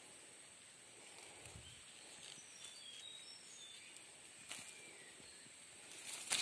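Faint outdoor ambience in undergrowth: a steady high hiss with a few faint bird chirps in the middle. Near the end comes louder rustling of leafy branches and dry leaf litter as someone moves through the brush.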